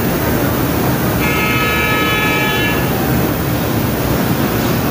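Steady background street noise with a single held vehicle horn toot starting about a second in and lasting about a second and a half.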